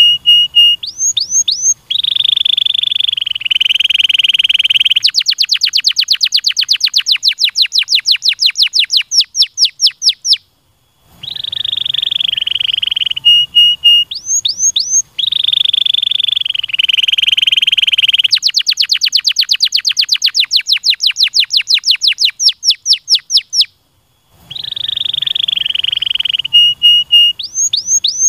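Domestic canary singing: a buzzy trill, a few quick rising notes, then a long, rapid run of rising chirps, with short breaks between phrases. The same song phrase comes three times.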